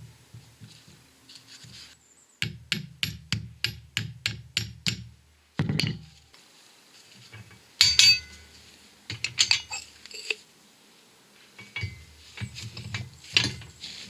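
Metal tools and parts knocking and clinking on a hydraulic shop press: a quick run of about ten light taps, then scattered heavier clanks, the loudest about eight seconds in.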